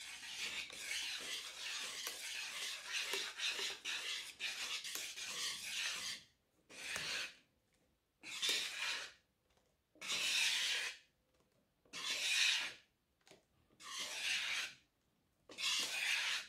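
Wire balloon whisk scraping and swishing through cake batter in a bowl as whipped meringue is folded into red velvet chiffon batter. Quick continuous strokes for about six seconds, then slower single sweeps about every two seconds.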